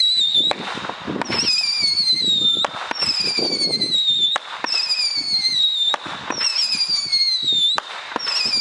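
A multishot fireworks cake firing spinning whistle shells one after another, about every one and a half to two seconds. Each shot gives a shrill whistle that falls slowly in pitch, and sharp cracks come between the whistles.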